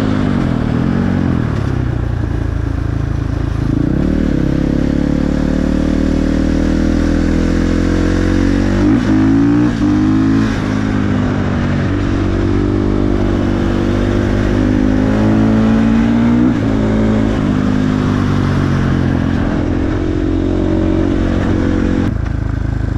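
KTM 450 supermoto's single-cylinder four-stroke engine running under way through its aftermarket exhaust. The pitch climbs steadily under throttle, with quick changes in pitch about four seconds in, around nine to ten seconds and around sixteen seconds, as the rider shifts and rolls on and off.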